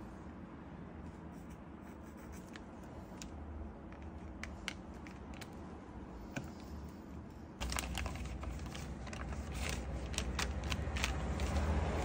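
Art supplies handled on a desk: light scattered clicks and taps of markers and tools, then about two-thirds in a sudden, louder rustling and crinkling of newspaper over a low rumble.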